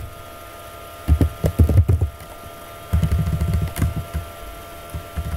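Computer keyboard typing: three bursts of quick key clicks with dull thumps, over a faint steady electrical hum.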